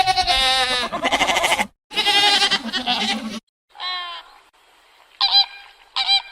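Goat bleating: two long, quavering bleats back to back, followed after a short pause by several shorter calls.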